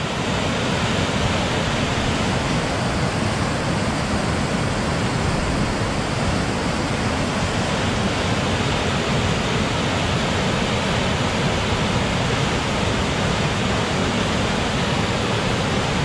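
River Aire water pouring over a weir: a steady, loud rush of water. The river is running high and forceful after a day of rain.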